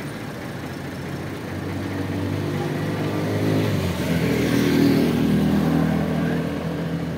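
Ford 3610 tractor's three-cylinder diesel engine idling steadily, growing louder from about two seconds in.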